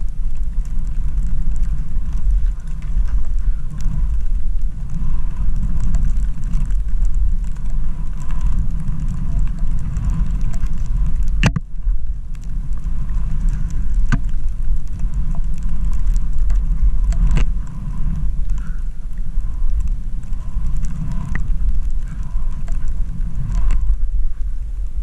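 Wind buffeting the microphone of a skier's action camera during a descent through deep powder: a steady low rumble. Several sharp clicks break through it, the loudest about halfway.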